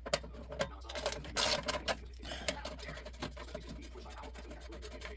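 Socket ratchet clicking in quick irregular strokes while undoing the bolts on a snow blower's engine shroud.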